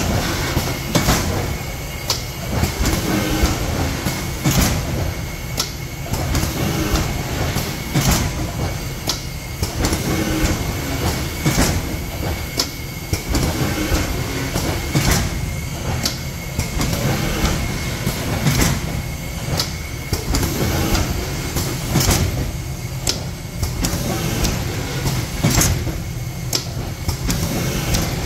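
Thermoforming machinery running: a steady low rumble and hum with a thin high tone held throughout, broken by frequent sharp metallic clanks and clicks.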